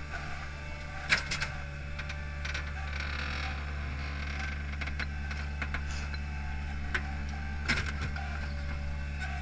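Hydromak paving machine running steadily with a high whine over its engine hum, carrying a clamp-load of concrete pavers. Sharp metal clanks come about a second in and again near the end.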